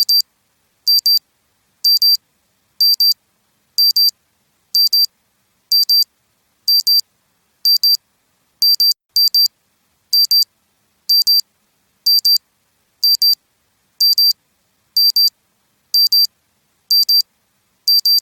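Electronic alarm clock beeping: a short, high-pitched double beep repeating about once a second.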